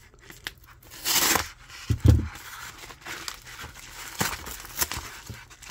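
A knife slitting open a padded kraft mailer, with a loud tearing rip about a second in and a low thump just after two seconds. Paper and wrapping then crinkle and rustle, with a few sharp clicks, as the contents are pulled out.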